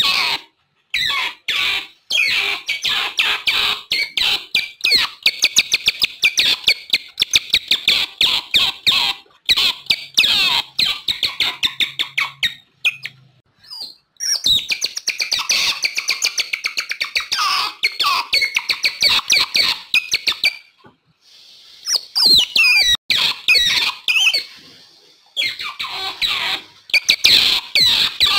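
Otter calls: rapid runs of high-pitched chirps and squeaks, several a second, broken by two brief pauses.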